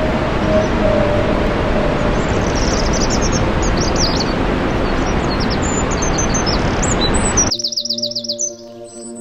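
Small birds chirping in quick high trills over a loud steady rushing noise. The noise cuts off suddenly near the end, leaving the chirps over soft sustained music.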